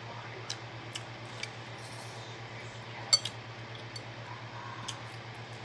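Scattered sharp clicks and crackles of shrimp shells and utensils as seafood is peeled and eaten, one louder click about three seconds in, over a steady low hum.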